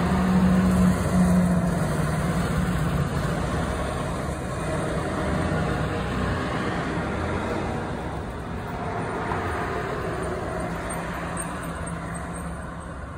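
Road traffic going by, with a steady low engine hum underneath. Loudest in the first couple of seconds as a vehicle passes close, then slowly fading.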